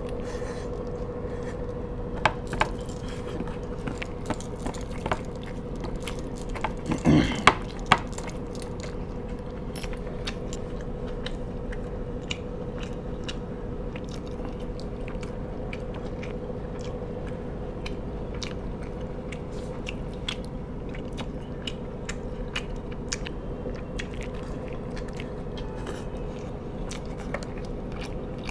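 Close-up eating sounds: a person chewing and biting food, with many small wet clicks and crunches and one louder brief noise about seven seconds in.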